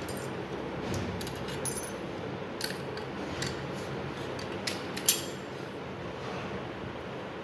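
Scattered metallic clicks and taps of small door-lock parts being handled and worked, irregular, with a loud cluster just under two seconds in and a sharp click about five seconds in.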